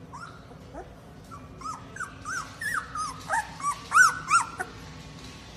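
Young puppy whimpering: a quick run of about a dozen short, high, squeaky cries that rise and fall in pitch, loudest about four seconds in.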